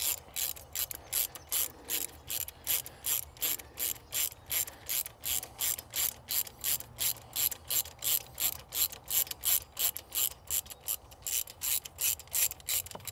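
Hand ratchet clicking rapidly and evenly, about three clicks a second, as a spark plug is unscrewed from a Generac standby generator engine.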